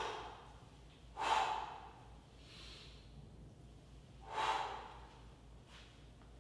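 A man's sharp breaths of effort while lifting a kettlebell in a deadlift: three short, hard breaths, one right at the start, one about a second in and one about four and a half seconds in.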